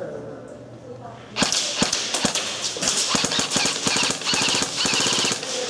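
Airsoft guns firing in rapid full-auto bursts, starting about a second and a half in.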